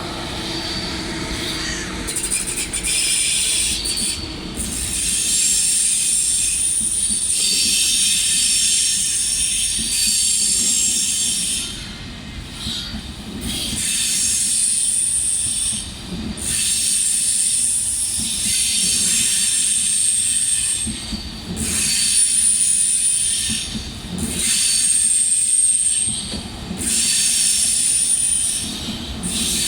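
ICE 1 train's wheels squealing against the rails as it pulls out: a loud, high-pitched screech that starts about two seconds in and comes and goes in stretches of a few seconds, over a low rolling rumble.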